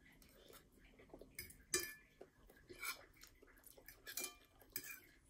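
Fork clinking and scraping against a plate of noodles in a handful of irregular taps, a few with a brief ring. The loudest tap comes a little under two seconds in.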